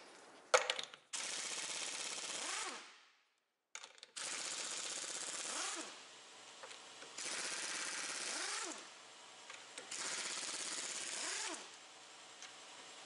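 Pneumatic impact wrench hammering the lug nuts off a car's front wheel, in four runs of about two seconds each, each ending with a short whine as the tool winds down. A sharp click about half a second in as the socket goes onto a nut.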